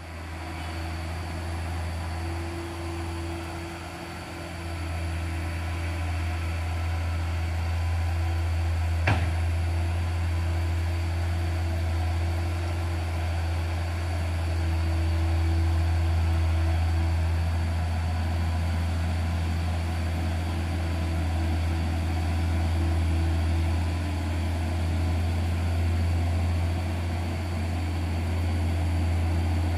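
Heavy diesel truck engine labouring up a steep grade in low gear: a steady low drone that swells slightly after a few seconds. A single sharp click about nine seconds in.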